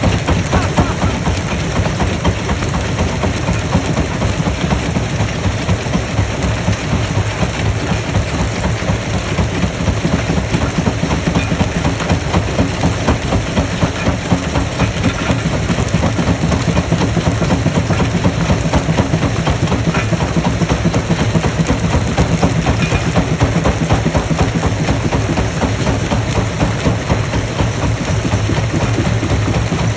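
Stone crushing machine running steadily: a loud, low mechanical rumble with a fast, continuous rattle.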